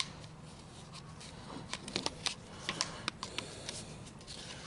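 Light scattered clicks and rattles of a Honda HRX217's plastic recoil starter being handled and turned with a screwdriver. The clicks cluster around two and three seconds in.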